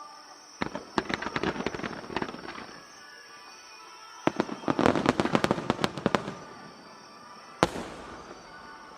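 Star mine fireworks barrage: two dense volleys of rapid bangs and crackles, then a single loud shell burst near the end whose boom echoes away.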